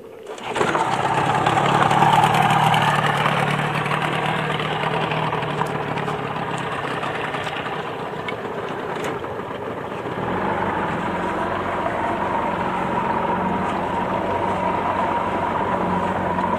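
1986 Yamaha 30 hp two-stroke outboard motor pull-started, catching about half a second in, running fast for a couple of seconds, then settling to a steady idle.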